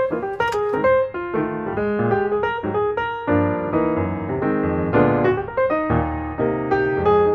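Piano music, a fairly quick run of notes with chords underneath.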